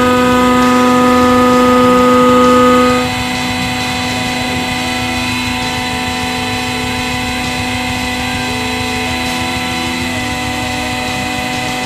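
Hydraulic press pump motor running with a steady, even-pitched hum. It is loudest for the first three seconds, then drops to a lower level and keeps running.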